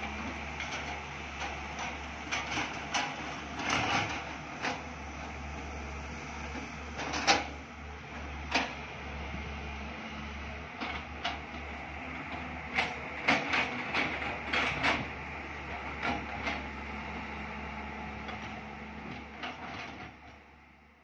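Diesel engines of JCB and Tata hydraulic excavators running steadily while digging, with scattered sharp clicks and knocks over the drone, the loudest about seven seconds in. The sound fades out near the end.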